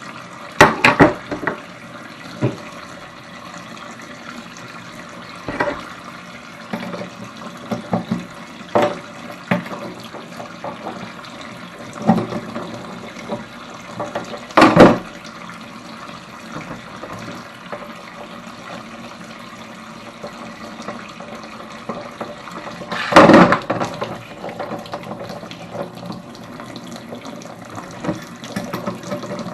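Hot water running steadily from an opened tap into a sink, with occasional sharp knocks and clatters, loudest about halfway through and again about three quarters of the way in.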